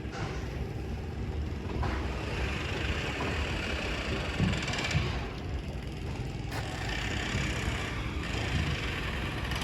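Air compressor engine running steadily, with a hiss that comes and goes on top of it.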